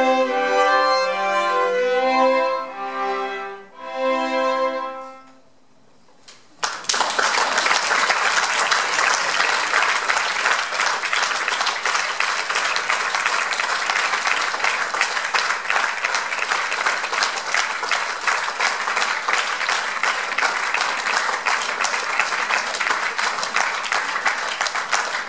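A string ensemble of violins, viola and cello plays its last phrases and ends on a held chord that dies away about five seconds in. After a moment of hush, an audience breaks into steady applause.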